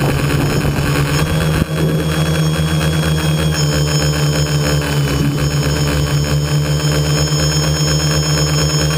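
Tricopter's electric motors and propellers whining steadily, heard close up from the craft's onboard camera, the pitch shifting slightly with throttle and dipping briefly about one and a half seconds in.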